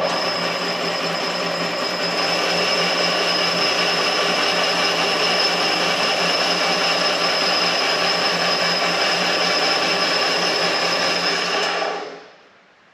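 Electric motor of a power tool switched on abruptly and running at a steady speed with a high whine, taking material off the face of a sawmill blade collar; near the end it is switched off and winds down.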